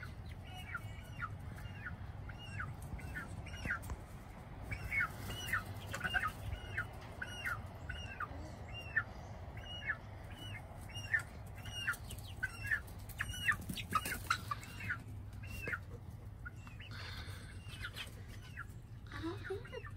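Young chickens, about two months old, peeping over and over: a long run of short, high, rising-and-falling peeps, about two a second, thinning out near the end over a low steady hum.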